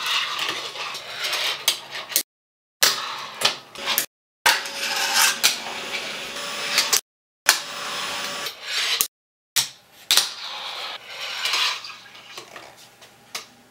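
A fingerboard's small hard wheels rolling on polished granite tiles, with sharp clacks of the deck popping and landing, in short bursts cut apart by moments of total silence.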